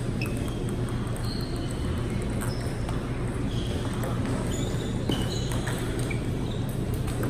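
Table tennis balls clicking off bats and tables in irregular, scattered hits, each with a short high ping, over a steady low hum.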